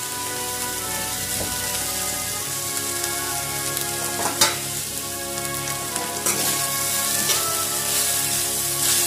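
Shredded carrot and cabbage sizzling in hot oil in a steel kadhai over a high flame, stirred with a metal spatula. A sharp knock of the spatula on the pan comes about four and a half seconds in.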